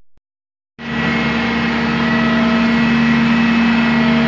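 Near silence for the first second, then a truck-mounted crane's engine running steadily with a constant droning hum, as the crane gets ready to lift a rooftop HVAC unit.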